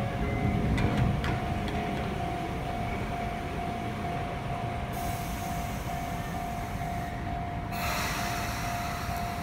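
Sotetsu 8000 series electric train standing at a platform: a steady high whine from its onboard equipment over a low rumble, joined about halfway by a high hiss that breaks off for a moment and comes back.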